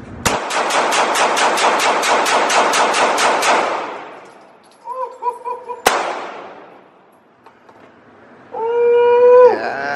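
A pistol fired one-handed in a rapid string of about six shots a second for some three seconds, each shot echoing in the range. One more single shot comes a few seconds later. Near the end there is a loud, steady, held tone.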